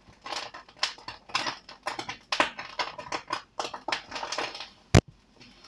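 Irregular light clicking and scraping of a utensil working in a frying pan while eggs cook, with one sharp, loud click about five seconds in.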